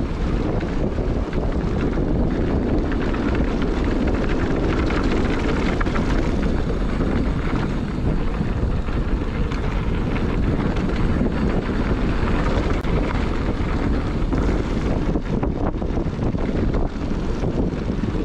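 A mountain bike riding down a dry dirt trail: steady wind rushing on the microphone over the tyres rolling on packed dirt. A few knocks and rattles from bumps come near the end.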